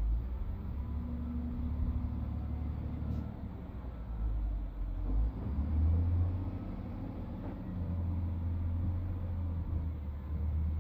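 Excavator's diesel engine running at work with a low rumble that rises and falls with load, swelling about six seconds in.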